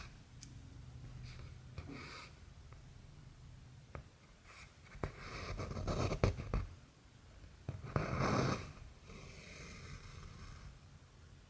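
Cross-stitching by hand: cotton thread drawn through the stitching fabric in several short rustling pulls, with small ticks between them. The loudest pulls come about halfway through and again a couple of seconds later.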